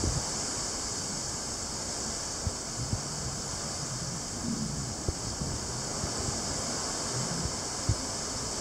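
Wind buffeting the microphone over open sea: a steady rush of wind and water with a few brief low thumps as gusts hit the mic.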